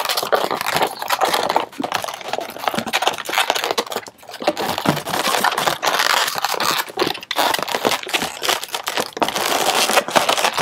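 Inflated latex 260 twisting balloons rubbing and squeaking against each other as a twisted-balloon figure is handled and its twists are adjusted: a continuous rubbing noise full of short clicks, briefly quieter about four seconds in.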